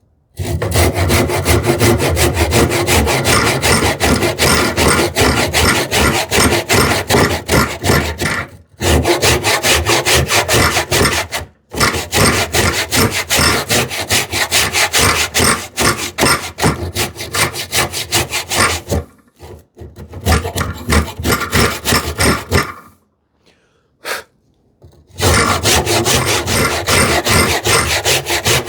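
Hand saw making stop cuts across a sapele board: several bouts of quick, rasping back-and-forth strokes with short pauses between them.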